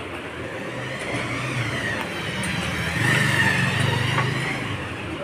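Motorcycle engine running in the street, swelling about three seconds in and easing off toward the end.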